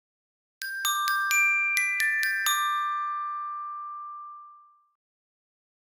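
A short music jingle of bright mallet-percussion chimes: about eight struck notes over two seconds, the last ones ringing on and fading away.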